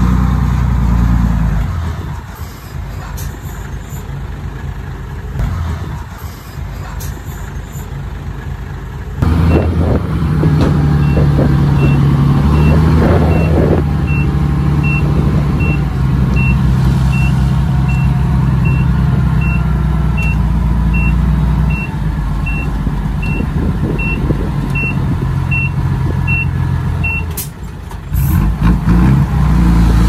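Heavy diesel earthmoving machinery running steadily. From about a third of the way in, a reversing alarm beeps evenly at about two beeps a second, stopping shortly before the end, as a machine backs up.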